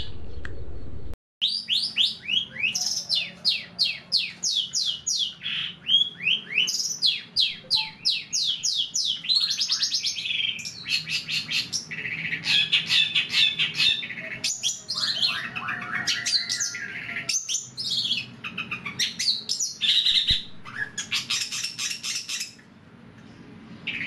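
Long-tailed shrike (cendet) singing: a fast, varied run of chattering phrases built from rapid falling notes, starting about a second in and carrying on for some twenty seconds before dropping much fainter near the end.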